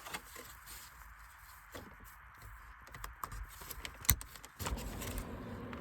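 Light plastic clicks and knocks of dashboard trim being handled, with one sharp click about four seconds in. Then a steady hiss-like sound starts from the car's speakers as the newly installed replacement radio head unit begins putting out sound.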